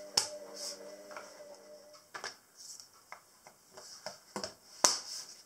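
Plastic drawer runners being pressed and clipped into pre-drilled holes in a solid pine panel: a few irregular sharp clicks and taps, the loudest near the end.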